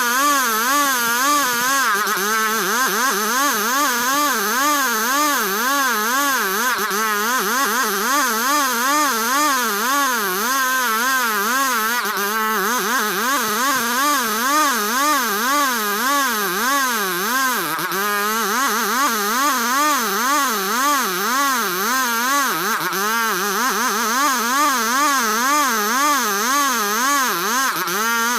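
Engine-driven sawmill running under heavy load while sawing ulin (Borneo ironwood). Its steady hum wavers up and down in pitch about twice a second.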